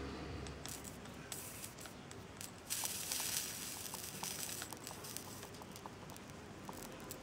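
Solder flux sizzling and crackling as solder wire is fed onto a hot soldering iron tip pressed against a steel washer. A hiss swells about three seconds in, with scattered small crackles after it.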